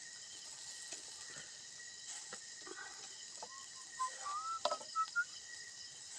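Birds and chicken roasting on sticks over glowing wood coals, sizzling faintly with a few small crackles. About four seconds in comes a short run of whistled notes, several of them rising.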